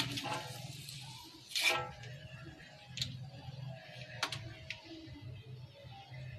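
Chicken heads deep-frying in hot oil: a sizzle broken by a few sharp pops and crackles, the loudest about a second and a half in.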